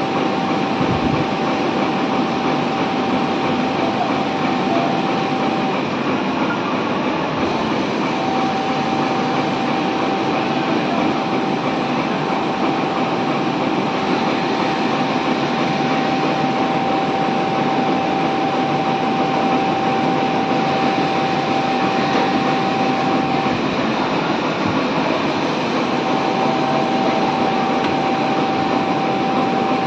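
Richpeace single-head automatic pattern sewing machine running continuously as it stitches collar pieces in a template, a steady mechanical clatter with a high, even whine that stops twice for about two seconds.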